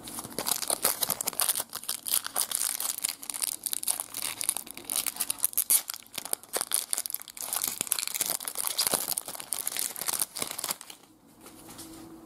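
Foil trading-card pack wrapper being torn open and crinkled in the hands, a dense crackling rustle that dies down near the end.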